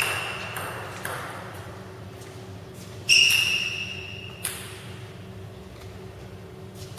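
A sharp ringing ping about three seconds in that dies away over about a second, with a fainter one at the start and a few light clicks between.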